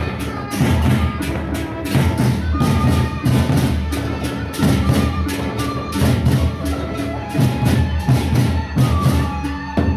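Sasak gendang beleq ensemble playing live: large double-headed barrel drums beaten with sticks in a fast, driving rhythm, with sharp cymbal clashes and a few ringing pitched notes above.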